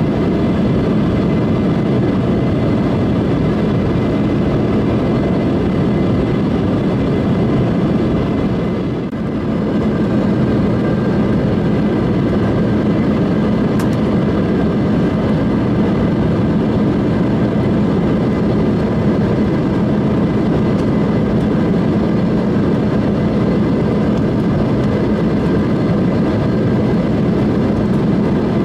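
Steady cabin noise of an Embraer E175 airliner in flight: the rush of airflow with the hum of its turbofan engines, a low drone and faint steady tones, dipping briefly about nine seconds in.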